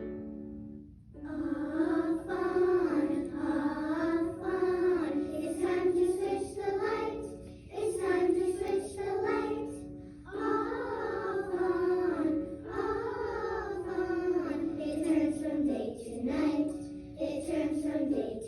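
Children singing a phonics song for the short 'o' sound, with musical accompaniment, starting about a second in after the last plucked notes of an intro.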